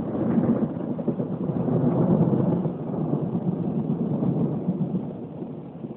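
Thunder rumbling after a lightning strike, a deep rolling rumble that stays loud for the first half and then slowly fades away.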